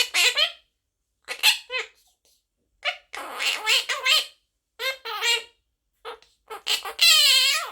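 Quaker parrot (monk parakeet) vocalising in short bursts of chattering calls and squawks, ending in a longer, loud call near the end.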